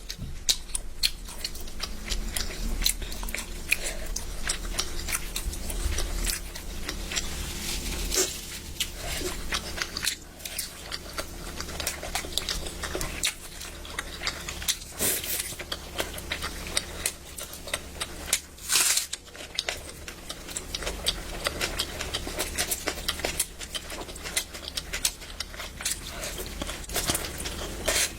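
Close-up eating sounds: chewing and biting with many small wet clicks and smacks of the mouth, over a faint low hum.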